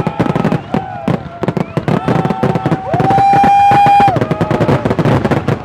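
Aerial fireworks going off in quick succession: dense crackling and popping bursts with several whistles sounding over them. The loudest whistle rises in pitch about three seconds in, holds a steady tone for about a second, then falls away.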